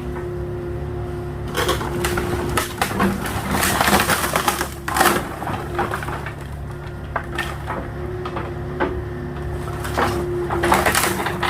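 A small agricultural excavator's engine running steadily while wooden pallets crunch and crack under its bucket, with several loud crunches, the loudest about four to five seconds in.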